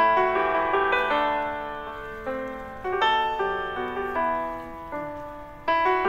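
Background piano music, slow chords struck a few at a time and left to ring and fade.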